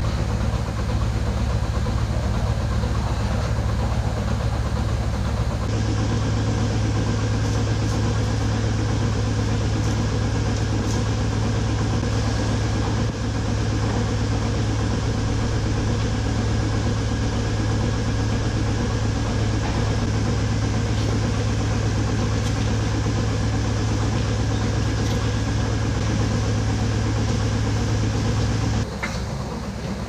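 Steady mechanical hum of a dairy milking parlor's milking machinery running during milking. The hum gets fuller about six seconds in and drops slightly just before the end.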